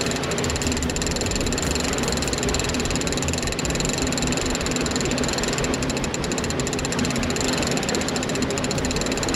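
Shimano lever-drag trolling reel being cranked, its gears and pawl clicking rapidly and steadily as line is wound in under the load of a hooked wahoo.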